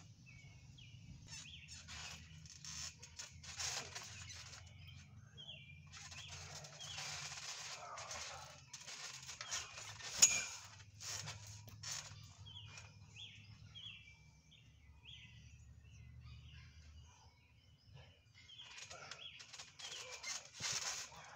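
Scuffs and thumps of bodies rolling and landing on a trampoline mat, with one sharp knock about ten seconds in. Small birds chirp in short runs in the background, over a faint low hum.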